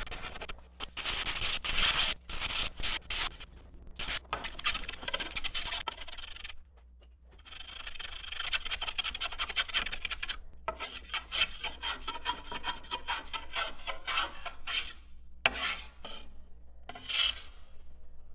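A hand woodworking tool rasping and shaving across a laminated wooden kayak paddle blade in many quick, short strokes, with a brief pause about a third of the way in.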